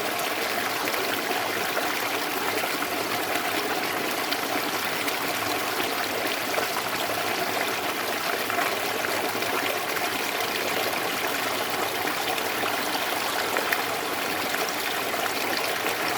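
Flowing water trickling and babbling steadily, with small splashes scattered through it.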